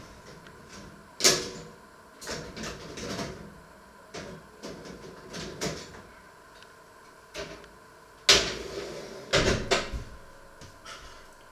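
Kitchen clatter: a run of knocks and bumps as things are handled, like cupboard doors or utensils being set down, with the loudest bangs about a second in and about eight seconds in.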